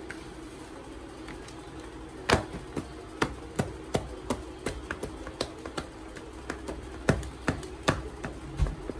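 Hand kneading and punching soft donut dough in a plastic bowl: irregular sharp slaps and knocks, sparse at first and then a few a second from about two seconds in.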